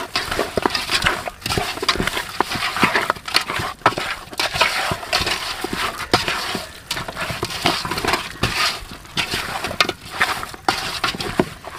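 Raw chicken pieces being mixed by hand with spices and lemon juice in a metal pot: an irregular run of wet squishing and rubbing, with light clinks as meat and fingers knock against the pot.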